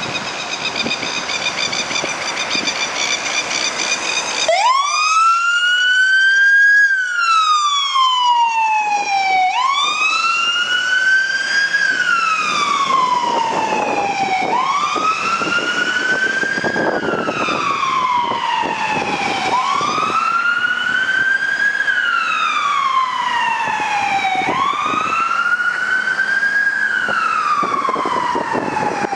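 Fire engine's siren on a slow wail, starting about four seconds in and rising then falling in pitch about every five seconds, over the noise of the truck's engine and traffic. Before it starts, a steady high wavering tone.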